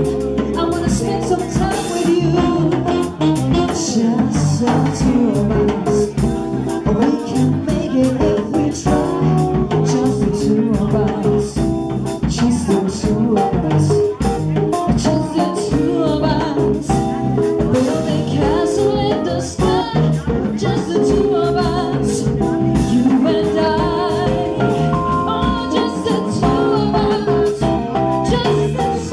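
Live salsa band playing Latin jazz, with dense percussion hits throughout.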